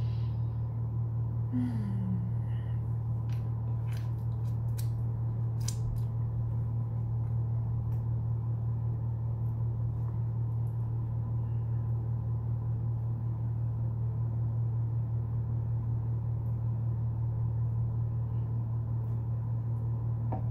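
A steady low hum, with a few faint clicks and rustles as a banana is handled and peeled.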